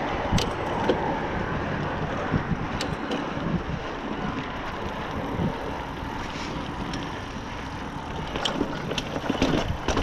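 Specialized Rockhopper mountain bike being ridden along a dirt trail: steady tyre and drivetrain noise with scattered sharp rattles and knocks over bumps, and wind buffeting the microphone.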